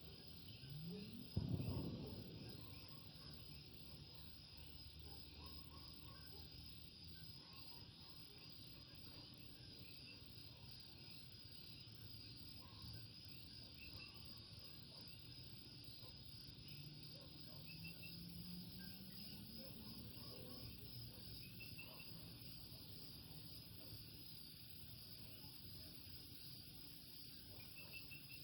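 Common coquí frogs calling, short chirps scattered over a steady high insect hum. A brief loud bump comes about a second in, and a faint low tone rises slowly in pitch around the middle.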